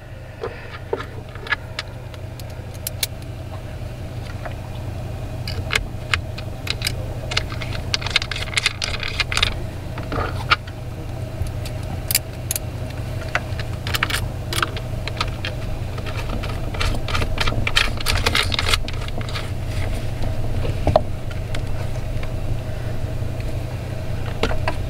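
Scattered metallic clinks and jingles of small metal parts being handled: metal connector plates and screws being bent and fitted onto LiFePO4 battery cell terminals. The clinks come in bunches, over a steady low hum.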